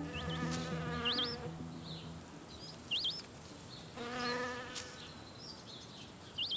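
Natural outdoor ambience: an insect buzzing in two passes of about a second each, at the start and about four seconds in, with short rising-and-falling bird whistles several times.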